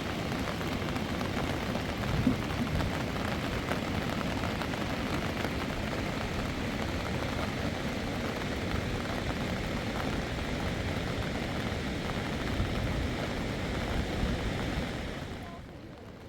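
Steady heavy rain falling, a dense even hiss that drops away suddenly near the end.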